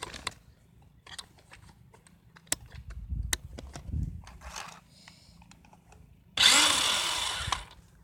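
Scattered clicks and knocks of a phone being handled and bumped, then a burst of about a second near the end of a remote-control car's small electric motor and wheels whirring close to the microphone.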